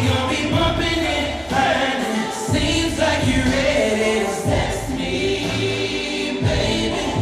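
Live R&B music played loud through an arena's sound system: a held, soulful singing voice over heavy bass notes that change every second or two.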